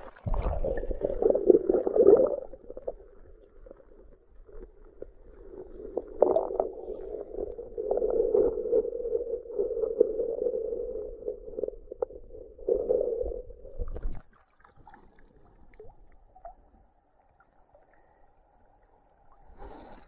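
Muffled underwater sound of water churning around a submerged camera as a gloved hand digs in the sandy riverbed, in uneven surges. About fourteen seconds in it stops and turns mostly quiet.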